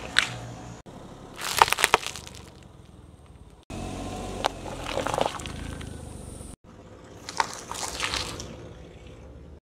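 A car tyre rolling slowly over small objects and crushing them, heard as three separate spells of crackling and crunching. The second spell is paper cups being flattened and the third is a bunch of green onions being crushed.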